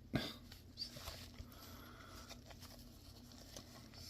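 Faint handling noises of packaging being opened: a few soft taps and rustles, the clearest near the start and about a second in, over a faint steady hum.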